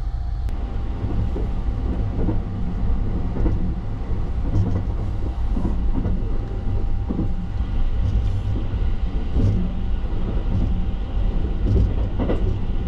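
Sunrise Seto sleeper train heard from inside a compartment while running: a steady low rumble with a faint steady hum and scattered light knocks from the running gear.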